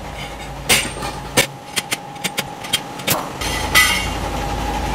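A few sharp metallic clicks and knocks from tools being handled on a tyre shop floor. About three and a half seconds in, a steady motor hum starts up.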